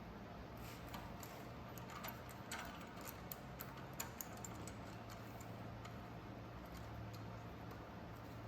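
Light clicks and taps of small metal parts being handled as the torch holder's clamp is worked by hand, clustered in the first half, over a steady low hum.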